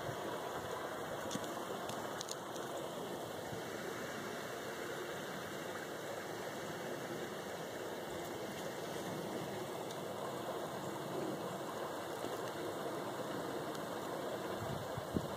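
A steady, even rushing noise that holds at the same level throughout, with no voices.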